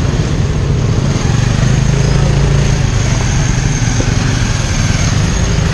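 Honda scooter's small single-cylinder engine running steadily while riding, with wind and road noise over it.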